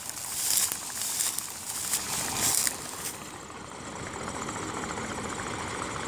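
Engine of a tractor-driven combine harvester converted to self-propelled, running steadily. A few bursts of dry rustling come through in the first three seconds.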